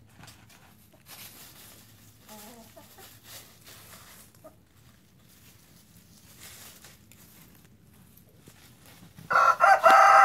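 Chickens scratching in dry leaves with a soft cluck about two seconds in, then near the end a rooster breaks into a loud crow.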